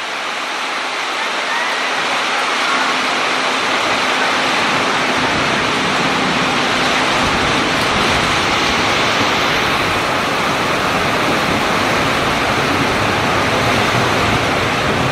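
Heavy rain pouring down, a loud, steady rushing hiss, mixed with the rolling of an electric commuter train passing close by.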